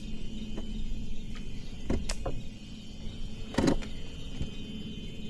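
Electric trolling motor running with a steady whine, with a few sharp knocks about two seconds and three and a half seconds in.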